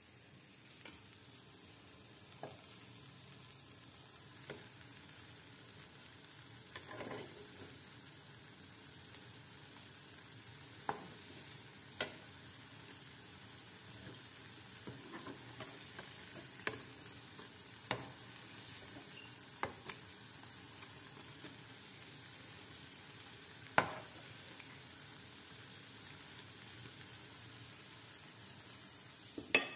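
Battered pakoras deep-frying in a pan of hot oil: a steady sizzle, broken by a scattering of sharp clicks, the loudest two near the middle and just before the end.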